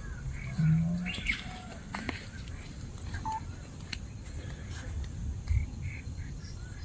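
Birds chirping in the background over a low rumble, with a brief, louder low-pitched sound about half a second in.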